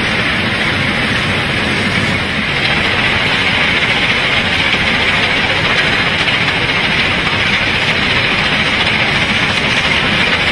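Heavy railway track-maintenance machine running: a loud, steady mechanical din.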